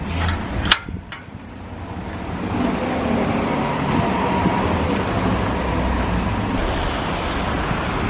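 Road traffic on a wet, slushy street: car tyres hiss as vehicles drive past, swelling about a second and a half in and then holding steady. A few sharp clicks come just before the swell.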